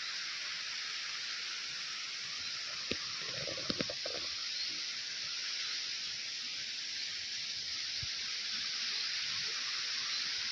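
Steady rushing hiss of flowing water, like a mountain stream, with a few brief knocks about three to four seconds in.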